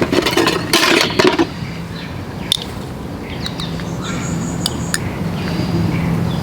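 A few light clinks and taps, like dishes or utensils being handled, over a steady low hum.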